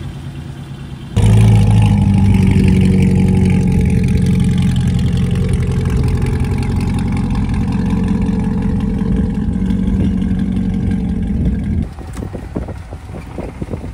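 A car engine idling loudly and steadily. It starts abruptly about a second in and cuts off near the end, followed by a few short knocks.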